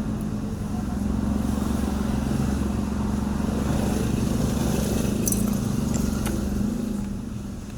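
A small engine idling steadily at an even speed, with no revving.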